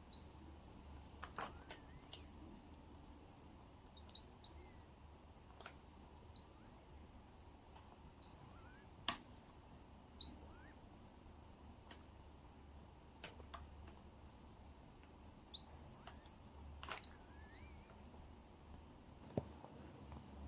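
A tiny bird calling with short, high, rising chirps, singly or in quick pairs every second or two. A few sharp clicks fall between the calls.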